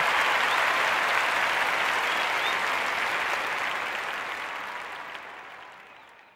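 Audience applause, a dense even clatter that fades steadily away to silence near the end.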